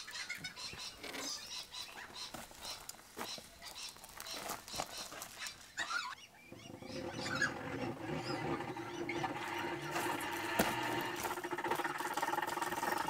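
Water flowing as the freshwater tank is filled from a garden hose: a steady rush with a faint hum that starts abruptly about halfway through. Before it, only faint scattered ticks and chirps.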